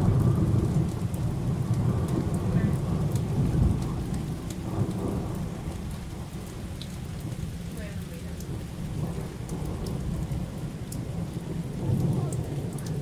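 Thunder rumbling, loudest at the start and dying away over the first few seconds, with another rumble swelling near the end. Rain falls steadily underneath, with scattered sharp drip ticks.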